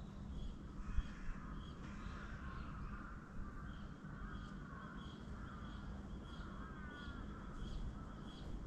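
Birds calling at sunrise: short high chirps repeated at an even pace over softer, wavering calls, with a faint steady low hum underneath.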